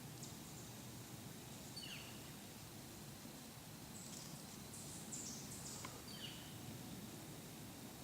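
Quiet woodland ambience with a few short, high bird chirps, one about two seconds in and another around six seconds.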